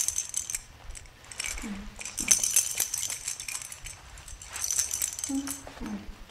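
A plastic toy baby rattle shaken in several short bursts, held up in front of a baby orangutan.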